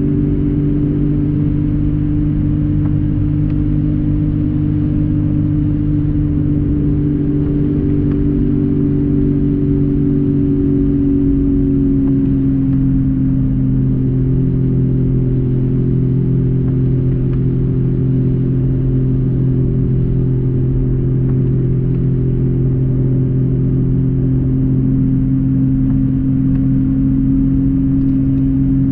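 Car engine and road noise heard from inside the cabin while driving: a steady drone of a few low tones over a low rumble, its pitch shifting slightly about halfway through.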